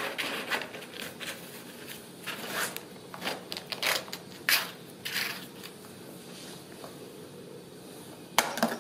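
Cardboard box scraping and rustling as a Ragdoll kitten scrabbles inside it, claws scratching the cardboard in short irregular bursts. Quieter from about five seconds in, then one sharp, loud scrape near the end.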